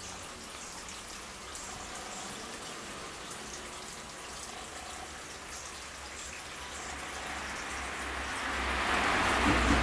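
Water trickling and splashing in a koi pond, growing louder over the last few seconds, with a low rumble near the end.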